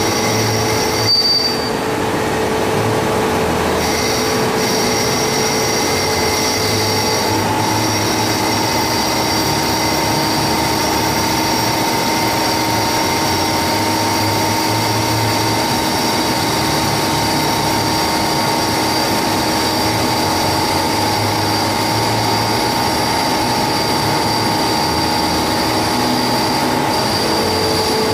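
Haas ST30 CNC lathe turning a metal workpiece: the spindle and cutting tool run with a steady squealing whine over a noisy wash. The tones change pitch about seven seconds in and again near the end.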